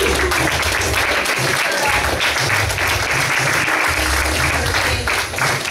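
Audience of students clapping throughout, over background music with a pulsing bass beat.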